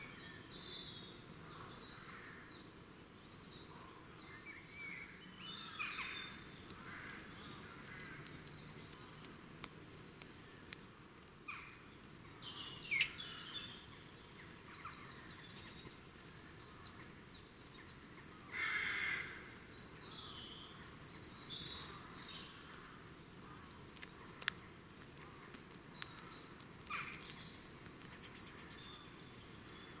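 Woodland birdsong: several small birds singing and calling, with short chirps and trills scattered throughout over a soft outdoor hiss. One louder call lasts about a second, a little past halfway.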